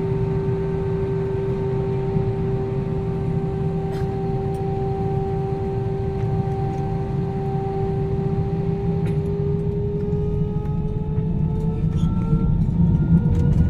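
Airliner cabin noise: a steady low rumble of engines and air conditioning with a steady whine that rises in pitch over the last few seconds.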